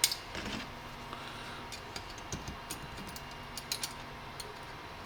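Faint, scattered small clicks and ticks of needle-nose pliers gripping and pulling at a plastic airsoft lower, peeling off a top layer, over a steady low hum.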